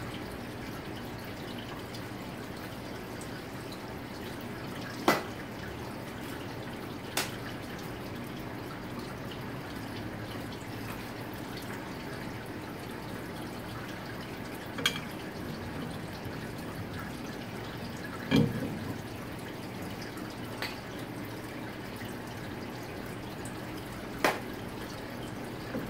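Coolant trickling and dripping steadily into a machining tub, with five short, sharp knocks about 5, 7, 15, 18 and 24 seconds in.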